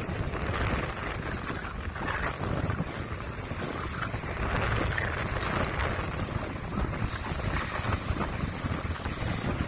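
Wind buffeting the microphone over splashing, sloshing water in the shallows, with no speech.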